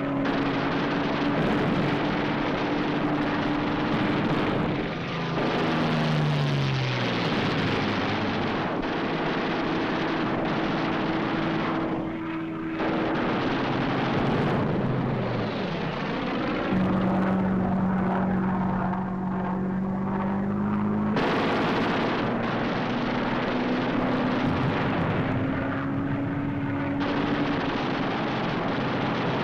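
Propeller-driven fighter engines running with a continuous drone on an old film soundtrack. The pitch drops sharply about six seconds in and again near the middle, and the sound changes abruptly several times where the track is cut.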